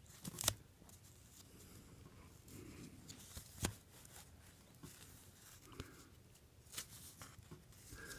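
Faint rustling of View-Master reels and their paper sleeves being handled and shuffled, with a few light clicks, the sharpest about half a second in and another near the middle.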